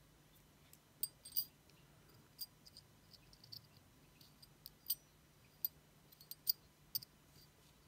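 Faint, irregular light clicks and ticks of a small wire brake pad spring and resin disc brake pads being handled between the fingers.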